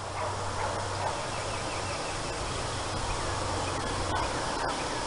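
Crazy Crawler topwater lure gurgling and paddling steadily across a calm pond surface as it is reeled in.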